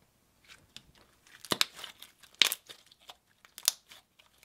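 Pink slime squeezed and folded between fingers, giving a run of wet pops and crackles; the three loudest pops come about a second apart.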